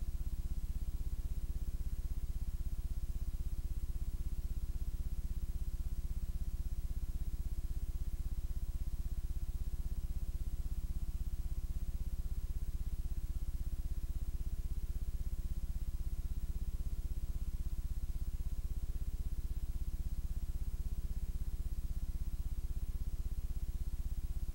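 Steady low electrical hum with a buzzy edge, with no programme sound over it.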